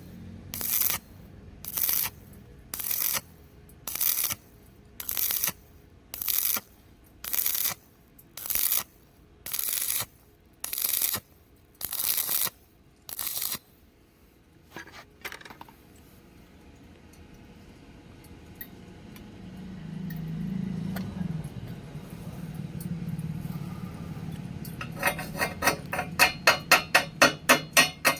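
A hand tool worked on steel: about a dozen short scraping strokes, roughly one a second, then a low hum, then quick sharp metallic taps about four a second near the end.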